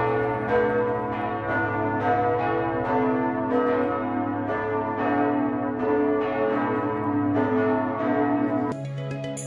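Church tower bells pealing: a bell struck about twice a second at changing pitches, each note ringing on into the next. Near the end the bells give way to background music.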